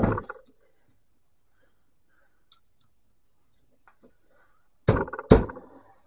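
Stripped-down electric typewriter handled on a wooden workbench: a brief clatter at the start, a few faint clicks, then two heavy thunks about half a second apart near the end as the machine is tipped and set down on the bench.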